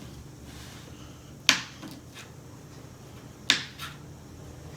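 Two sharp clicks about two seconds apart, each followed by a fainter click or two.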